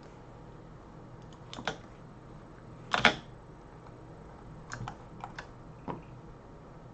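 Scattered clicks of a computer keyboard and mouse during CAD work, with a louder pair of clicks about three seconds in and a quick run of clicks near the end.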